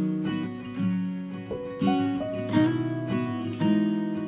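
Background music: acoustic guitar, with chords plucked and a fresh chord struck roughly once a second.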